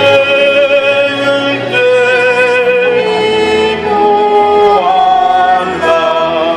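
Slow sung music: a voice holding long notes with vibrato, moving to a new pitch every second or two, over a low sustained accompaniment.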